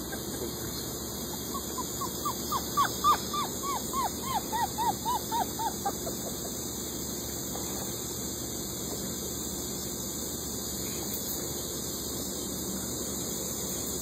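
An animal giving a rapid series of about fifteen short squeaky calls, each rising then falling in pitch, about four a second, starting a second or so in and stopping after a few seconds. A steady hiss follows.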